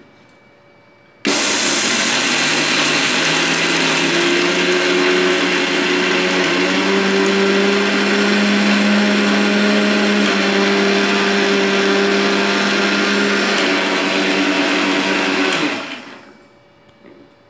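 Electric mixer grinder with a steel jar grinding fried chana dal (roasted gram) into a fine powder. The motor starts abruptly about a second in and runs loud and steady with a whine that steps up in pitch a couple of times early on, then is switched off and spins down near the end.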